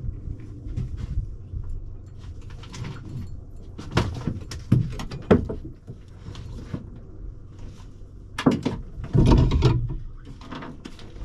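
Irregular clicks, knocks and clatter of fishing tackle being handled on a small boat, with heavier thumps about eight and a half and nine seconds in.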